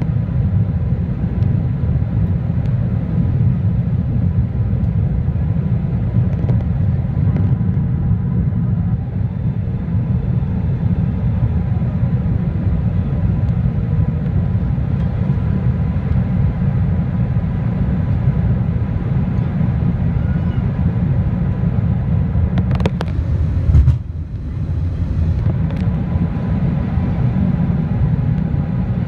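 Steady low cabin rumble of an Airbus A380 descending on approach, heard from a window seat over the wing: engine and airflow noise with the flaps extended. A short knock comes about 23 seconds in, and the rumble dips for a moment just after.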